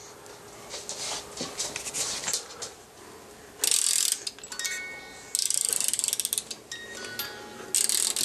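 Wind-up crib mobile being wound by hand: the music box's ratchet clicks in three quick runs from about halfway in, and its tune starts plinking out single bell-like notes between the winding strokes.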